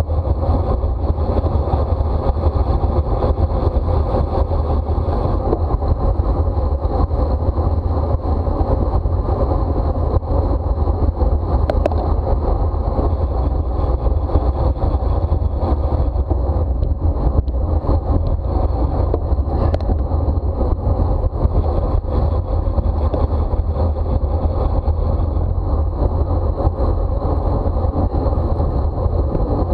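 Steady wind rush buffeting the microphone, with tyre and road noise from a bicycle ridden at race speed.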